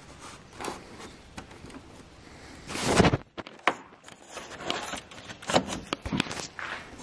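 Plastic honeycomb grille insert being worked into an Audi RS4's front bumper: plastic scraping and rubbing, with a longer, louder scrape about three seconds in, then a quick run of small plastic clicks and knocks.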